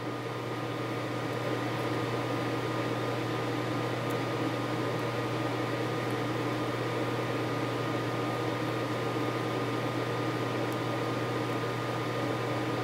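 Steady mechanical hum of a running fan or motor: a low drone with a thin high whine over a hiss. It grows a little louder over the first couple of seconds, then holds level.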